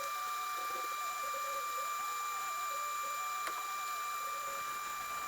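Steady, high-pitched whine of a small electric motor running at constant speed.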